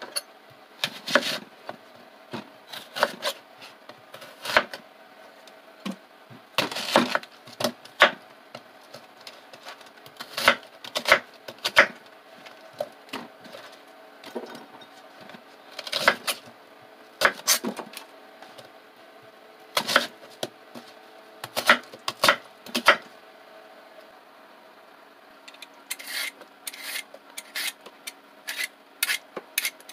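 Chef's knife cutting an onion on a wooden cutting board: sharp knocks of the blade on the board, coming in irregular clusters with pauses between. Near the end a quicker run of short scraping strokes as a carrot is peeled with a Y-peeler.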